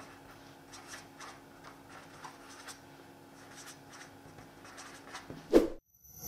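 A pen writing, with faint scratches and light taps over a low steady hum. There is a short, louder thump about five and a half seconds in, and then the sound cuts out.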